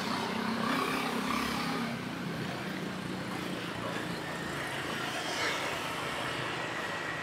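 Street traffic noise with a motor vehicle engine running close by; it is a little louder for the first two seconds, then eases to a steady hum of traffic.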